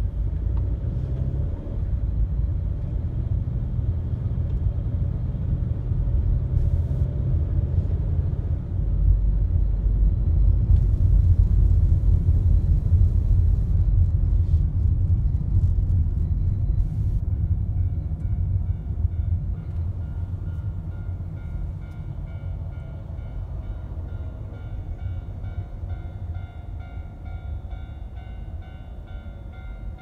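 Low road rumble inside a moving car's cabin. From about two-thirds in, a level-crossing warning bell starts up faintly and rings in an even, repeating clang.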